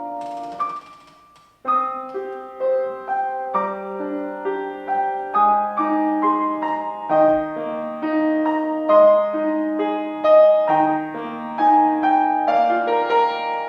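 Piano playing a slow melody over sustained chords, each note struck and ringing out. About a second in, the sound dies away almost to silence, then the playing resumes with a new phrase.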